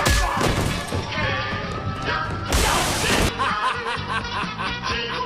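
Film soundtrack music with crash sound effects: a sharp hit at the start and a loud crashing burst lasting under a second about two and a half seconds in, then rhythmic music.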